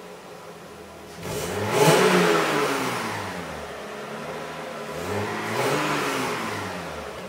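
Audi 80 Cabriolet's stock 2.6-litre ABC V6, slightly cold, revved twice from idle. The first rev comes about a second in, quick and loud, and falls back to idle. The second is a slower, softer rise and fall near the end.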